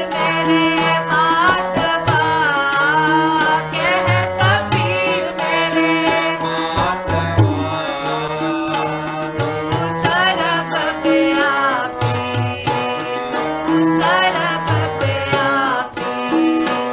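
Sikh devotional kirtan: a voice singing a gliding, ornamented hymn melody over sustained harmonium chords, with tabla strokes keeping a steady rhythm.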